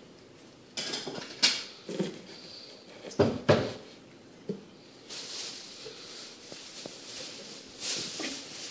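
Fillet knife and fish on a plastic cutting board: a run of knocks and taps, the loudest about three and a half seconds in, then a softer scraping sound lasting about three seconds.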